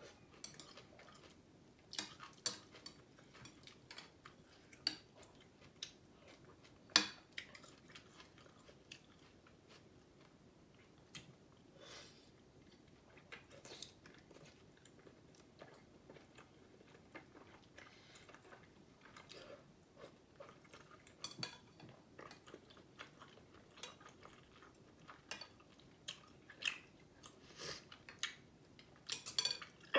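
A person eating noodle soup: chewing and slurping thick noodles, with scattered light clicks of chopsticks and a spoon against a glass bowl, one sharper click about seven seconds in.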